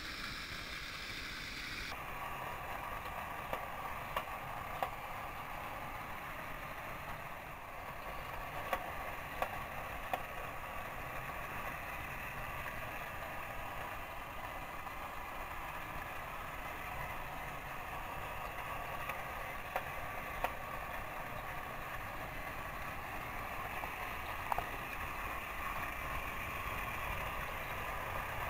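Battery-powered TrackMaster toy train engines running on plastic track: a steady motor whir and wheel rattle, with occasional sharp clicks.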